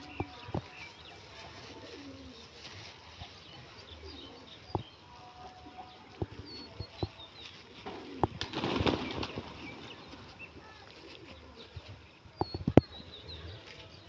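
Feral rock pigeons flapping their wings in a short flurry about eight seconds in, with scattered sharp taps, the loudest near the end, and a few faint high chirps.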